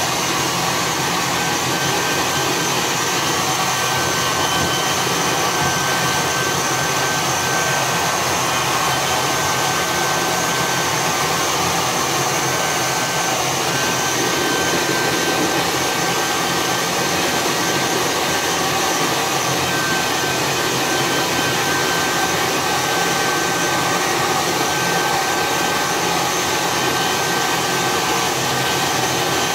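Hand-held hair dryer running steadily, blow-drying a wet chicken's feathers: an even rush of air with a thin steady whine.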